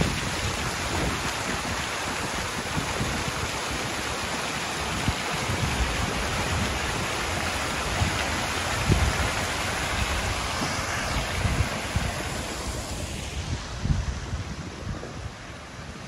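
Water-jet fountain splashing: many jets falling back into a shallow basin, a steady rush of falling water. Wind buffets the microphone now and then, and the splashing fades near the end.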